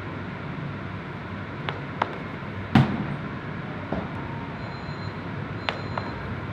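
A loud thud about three seconds in, as a thrown discus strikes the hanging backstop mats of the throwing cage, with a few light clicks and shoe scuffs on the concrete ring before and after, over a steady hum of room noise.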